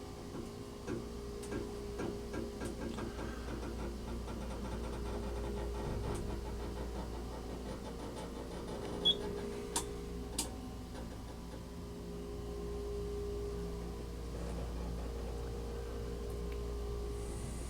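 Elevator running: a steady hum with a low rumble underneath, a run of light rattling ticks in the first few seconds, and three sharp clicks around the middle.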